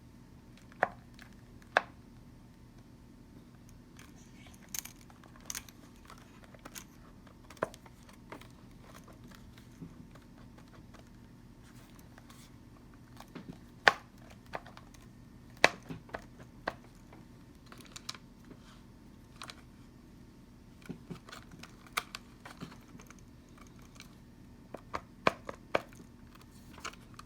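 Scattered clicks and light knocks of the blender's plastic housing parts and wiring being handled and pressed together, irregular, with a few sharper snaps. A faint steady hum lies underneath.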